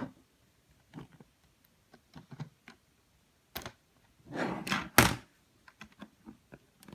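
Hands handling a Samsung tablet: scattered light taps and clicks, a sharp click about three and a half seconds in, then a rustling knock about five seconds in that is the loudest sound.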